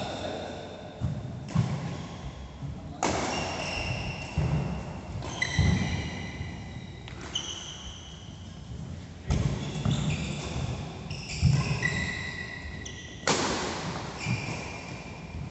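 Badminton play in a large, echoing sports hall: sharp racket-on-shuttlecock hits and footfalls, with rubber-soled court shoes squeaking on the court mat several times.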